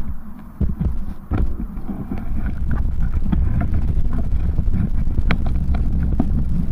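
Wind buffeting the microphone of a bicycle-mounted camera as the bike rides along a rough dirt path, with frequent small rattles and knocks from the bike going over bumps. The low rumble dips briefly near the start, then runs steady.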